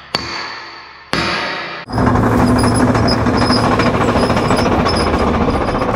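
Two heavy hammer blows on steel about a second apart, each ringing and then fading. From about two seconds in, a loud, continuous rapid rattle of a tool working metal takes over.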